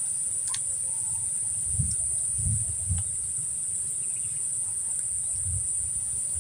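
Insects droning in a steady, high-pitched band, with a few soft low thumps of handling.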